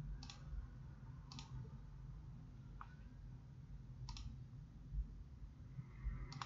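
About four faint computer mouse clicks, spaced a second or more apart, over a low room hum.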